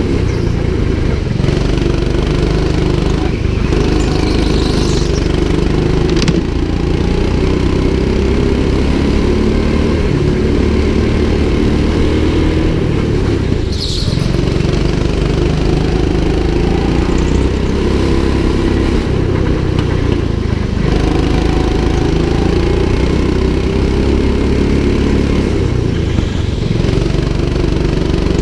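Go-kart engine heard from on board, running hard around the track. It dips briefly a few times, as the throttle is lifted for corners, and its pitch rises again as it picks up speed.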